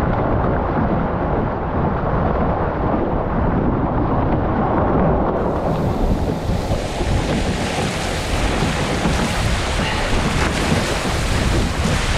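Wind buffeting the microphone over water rushing and spraying past the hulls of a Formula 18 racing catamaran sailing at speed. About five seconds in the rush turns brighter and hissier with churning spray and wake, and it goes duller again near the end.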